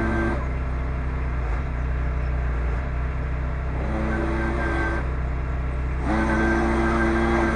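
RK25 compact tractor's diesel engine running steadily after a cold start in below-freezing weather, with no stumbling. Background music plays over it.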